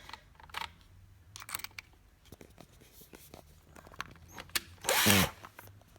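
Light clicks and rattles of hob parts and a hand tool being handled, with one louder scraping burst about five seconds in.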